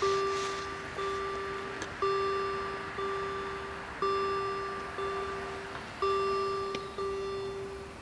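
Level crossing warning bell ringing about once a second, each ding fading away, with every other ring a little louder. It signals that the crossing has been activated for an approaching train as the half barriers go down.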